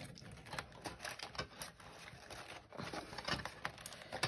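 Paper planner pages rustling as they are worked onto a metal spiral coil by hand, with an irregular run of small clicks and ticks as the punched holes catch on the rings.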